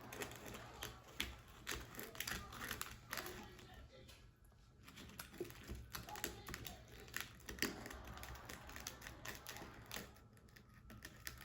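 Spoon stirring powdered edible-slime mix and water in a bowl: faint, irregular clicks and light scrapes of the spoon, easing off for a moment around the middle.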